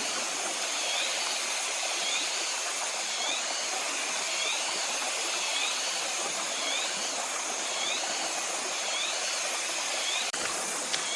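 Steady rushing, hissing noise, like running water, with a short rising chirp repeating about once a second above it. The sound breaks off sharply a couple of times near the end.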